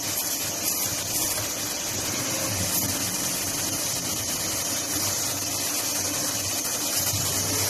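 CNC duct-panel cutting machine running, cutting pre-insulated foam duct board: a steady high hiss over a low hum.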